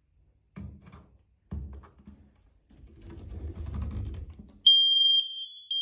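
Smoke alarm sounding its test tone as its test button is pressed: a loud, high-pitched steady tone starting near the end, with a brief break about a second in. Before it come a few knocks and rustling as the unit is reached and handled.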